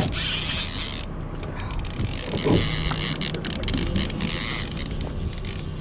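Fishing boat's motor running steadily, with patches of wind hiss on the microphone and a short louder sound about halfway through.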